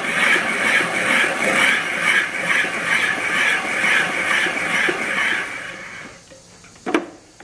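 Vintage hand-cranked shaved ice machine shaving a block of ice: a rough, steady scraping that pulses about two to three times a second with the turns of the crank, stopping about six seconds in. A single sharp knock follows near the end.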